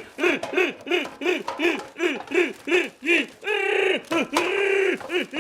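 A man's high falsetto voice hooting a fast run of rising-and-falling "woo" sounds, about four a second, then holding one long note near the end.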